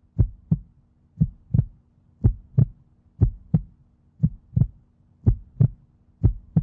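Heartbeat sound effect: a steady double thump, lub-dub, repeating about once a second.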